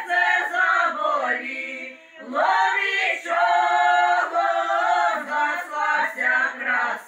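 Women's folk vocal ensemble singing a Ukrainian folk song a cappella in several-part harmony, with long held notes. The voices drop away briefly about two seconds in and then come back in together.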